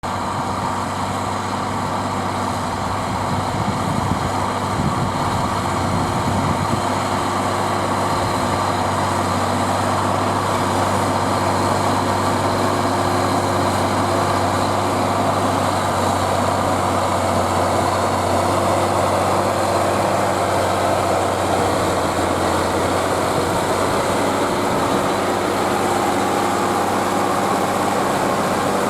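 Zetor Crystal 12145 tractor's six-cylinder turbo diesel running steadily under load, pulling a five-furrow plough.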